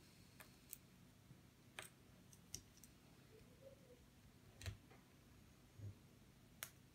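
Faint, irregular clicks of small plastic Lego minifigure parts being handled and pressed together, with two soft low thumps, one past the middle and one near the end.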